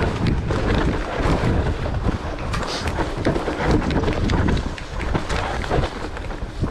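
Mountain bike riding a rough, muddy trail: steady wind buffeting on the microphone, with many quick rattles and knocks from the bike over roots and ruts.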